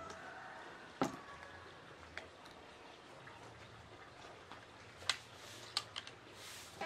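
Scoped air rifle being handled: several sharp clicks, the loudest about a second in and a cluster near the end, with a brief hiss just before the end.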